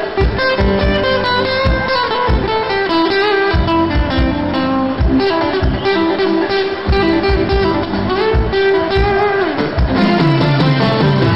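Live band playing an instrumental passage with no singing: strummed acoustic guitar over a steady drum beat, with sustained melody notes on top.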